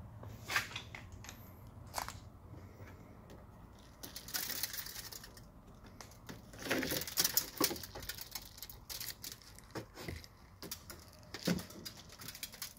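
Hands working the plastic trim and rubber window seal of a car's rear door: scattered clicks and knocks, with two spells of denser rustling and clattering, and a sharp knock near the end.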